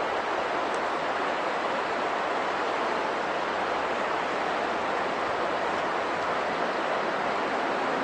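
Steady rush of flowing river water, an even hiss without breaks or changes.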